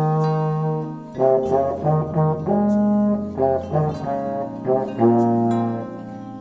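Trombone playing a phrase that mixes quick short notes with long held notes.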